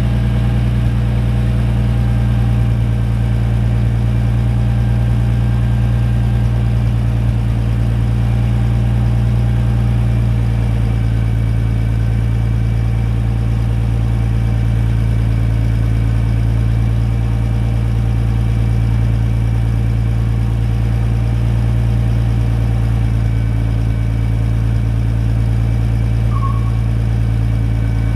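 Pattibone 25 Multikrane crane tractor's engine idling steadily, its note shifting slightly about ten seconds in.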